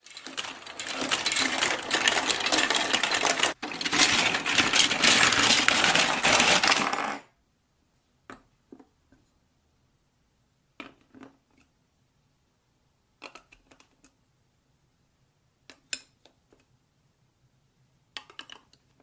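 Marbles clattering along a plastic marble-run track in a dense, continuous rattle for about seven seconds, stopping abruptly. Short clusters of marble clicks follow every two to three seconds.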